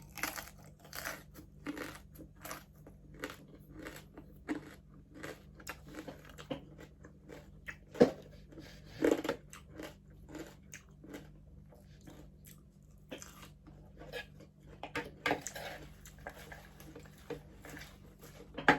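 Close chewing and crunching of crispy pata, deep-fried pork knuckle with crackly skin, with irregular crisp crunches one to three a second and a sharp click partway through. A faint steady hum runs underneath.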